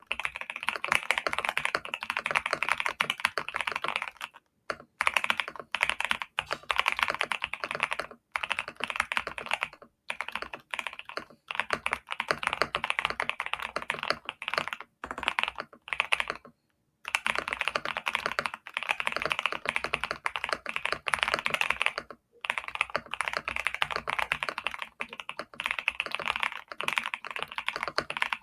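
Typing on a GMK67 mechanical keyboard fitted with factory-lubed Vertex V1 switches and Cherry Ember keycaps: rapid, continuous keystrokes in runs of a few seconds, broken by short pauses about six times.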